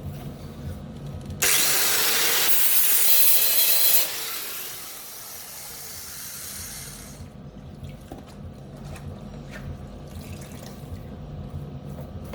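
Grinder switched on about a second and a half in, grinding down a freshly made steel plug weld for about two and a half seconds. It is then switched off and winds down, fading over a few seconds.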